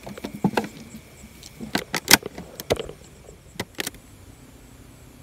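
Handling noise from fishing gear and a plastic container: about a dozen sharp clicks and knocks, scattered irregularly, the loudest about two seconds in.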